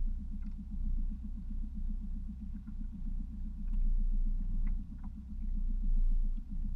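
Small outboard motor running steadily under way, a low, even pulsing hum.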